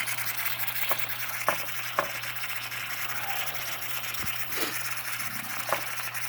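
Empire B42 twin-boiler steam engine under steam: a steady hiss with a few sharp clicks at uneven intervals. The stiff, long-unrun engine tries to turn but is not running.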